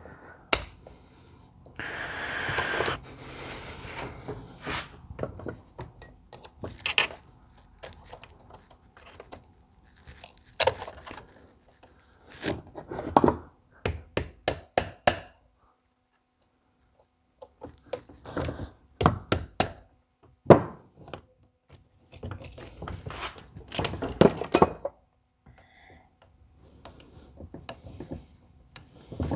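Metal tools and parts of a diesel injection pump knocking and clinking on a workbench during disassembly, with a quick run of five or six taps about halfway through. A steady hiss lasts about two seconds near the start.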